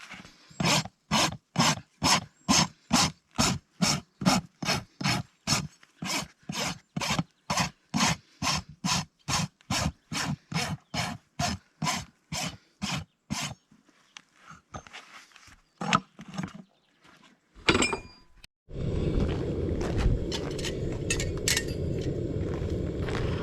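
Farrier's rasp drawn over a horse's hoof in quick, even strokes, about three a second, shaping the hoof, then a few slower strokes and a sharp clank. From about nineteen seconds in a steady low rumbling noise takes over.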